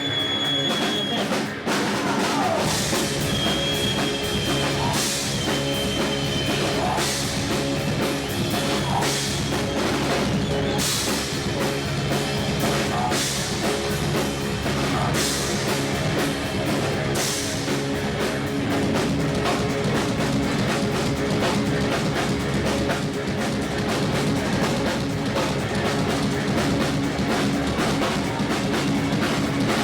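Live rock band playing, with drum kit, cymbals and electric guitar; the full band comes in about a second and a half in.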